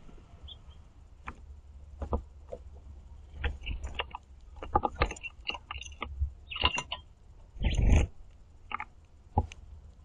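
Small seed-eating birds feeding on a platform feeder: irregular sharp taps and clicks of beaks pecking and seeds rattling on the platform, with a few short high chirps and a louder scuffle about eight seconds in.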